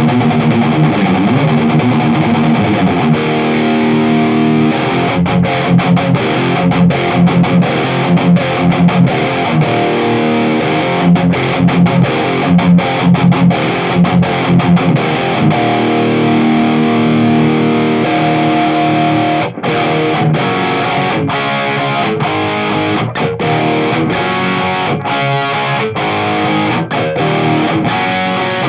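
Distorted electric guitar riffs: a 1995 USA Stratocaster's Seymour Duncan Distortion bridge pickup, played straight into a Mesa Badlander 25 tube amp head with no effects, through a Mesa closed-back cabinet. Rhythmic palm-muted chugging gives way to held chords about halfway through, with a brief break and choppier stop-start riffing near the end.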